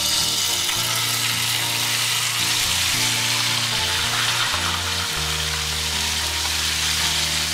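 Yoghurt-marinated mutton sizzling loudly in hot mustard oil as it is tipped into the kadai and fried. The steady hiss starts abruptly as the meat hits the oil.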